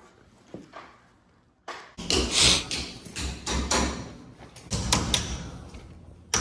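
Loud bangs and clatter starting suddenly about two seconds in, with sharp knocks repeating and flaring up again near the end.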